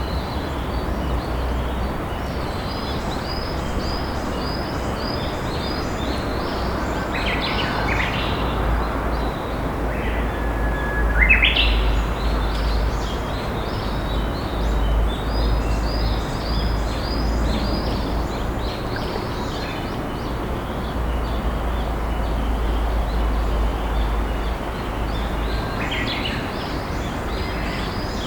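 Steady rush of a flowing river with wild songbirds singing over it. Short high chirps repeat in quick series through most of the stretch, and louder song phrases come about seven seconds in, again just after ten seconds (a held whistle, then a higher broken flourish) and near the end.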